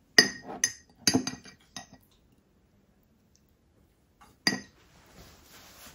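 Metal spoon clinking against a glass mason jar and plate while pickles are spooned out: a quick run of about four ringing clinks, then a single clink a few seconds later.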